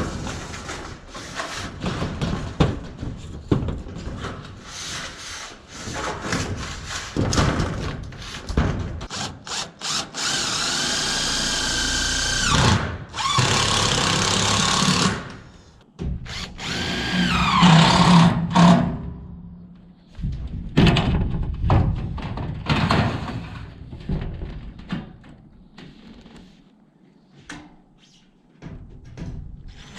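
Cordless drill running against sheet roofing steel in two runs, the first spinning up and holding steady for several seconds, the second shorter, louder and winding down, amid knocks and rattles of the steel sheet being handled.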